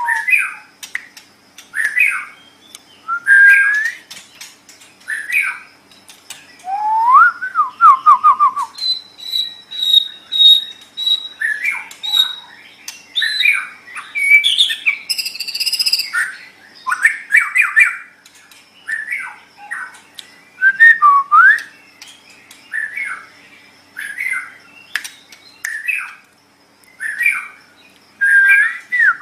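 White-rumped shama (murai batu) singing: a string of short whistled phrases, rising and falling glides and quick chattering notes about once a second, with a run of repeated high notes about ten seconds in.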